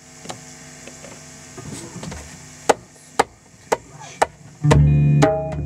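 Four sharp wooden clicks, evenly spaced about half a second apart, counting the band in. About a second later a bass guitar and acoustic guitar start playing together.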